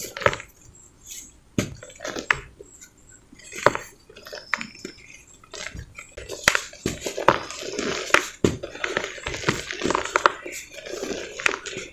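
Dry pure-cement balls crumbling and crushing in bare hands, with lumps and powder falling into a heap of cement dust. Scattered sharp cracks at first, then a denser run of gritty crumbling from about six seconds in.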